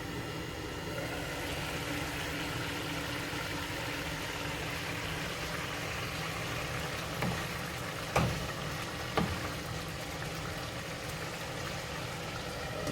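Thick prawn masala sizzling steadily in the pan as it cooks down on the flame, with a faint steady hum underneath and three short knocks, about a second apart, from a spoon against the pan.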